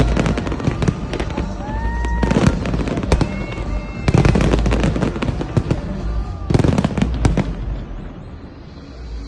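Fireworks display going off in quick succession: dense cracks and bangs with a few whistling shells, easing off about eight seconds in. Music plays underneath.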